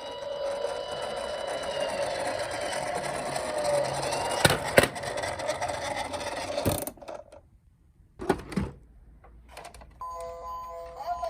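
Toy emergency vehicle's electronic siren wailing, holding its high note and falling away, over the rattle of the toy rolling. It is broken by a few sharp clacks. After a brief quiet, a short chiming jingle starts near the end.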